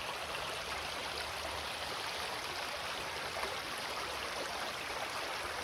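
River flowing steadily with an even, calm rush of water, the river running low after little rain.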